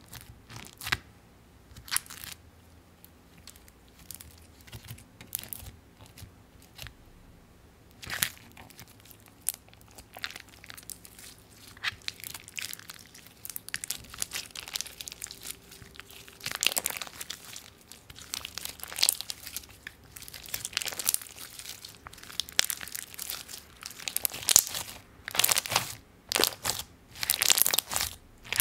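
Clear slime packed with blue and white cube pieces being poked, stretched and squished by hand, giving sticky crackling clicks and crunches. Scattered pokes at first, then denser, louder crackling from about halfway as the slime is squeezed between both hands.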